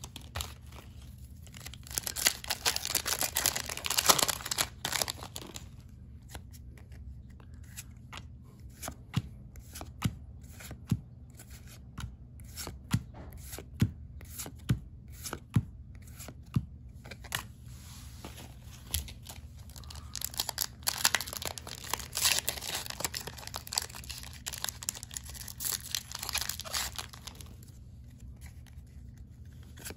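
Foil Pokémon booster pack wrapper crinkling and tearing open, followed by trading cards being slid off the stack one at a time with soft clicks about once a second. Near the end comes another long stretch of crinkling and card handling.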